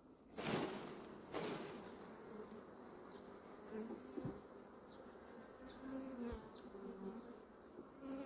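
Honeybees buzzing around an open hive, a low hum with wavering tones. Two short rushes of noise come about half a second and a second and a half in.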